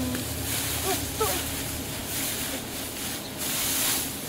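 Rustling of cut grass and reeds as they are gathered up and handled, coming in uneven swells.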